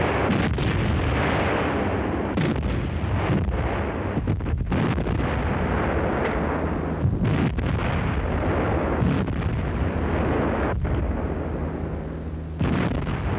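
German 105 mm leFH 18 field howitzers firing repeatedly, with sharp reports a second or two apart over a continuous heavy rumble of gunfire.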